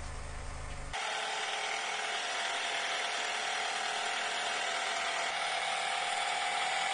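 The Nissan Altima's 2.5-litre four-cylinder engine running after a balance-shaft unit and timing-chain replacement. The low rumble drops away about a second in, leaving a steady mechanical whir with a faint whine.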